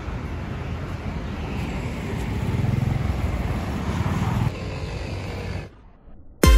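City traffic noise: a steady low rumble of passing vehicles, which fades out suddenly near the end.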